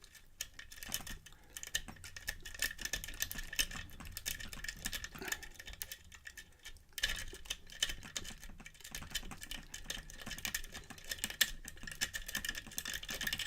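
Lock pick working the pins inside an Ideal Security pin-tumbler lock under tension: dense, irregular small metallic clicks and scrapes, several a second.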